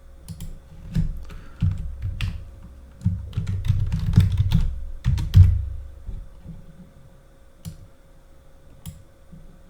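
Computer keyboard being typed on in quick irregular keystrokes, dense for the first six seconds, then only a few scattered clicks.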